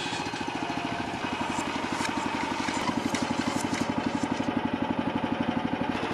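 420cc Predator single-cylinder engine idling with a steady, rapid, even beat.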